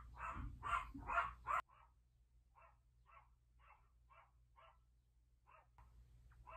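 A dog barking in a quick run, about three barks a second. A little over a second and a half in, the barks suddenly become much fainter and continue more sparsely, roughly two a second.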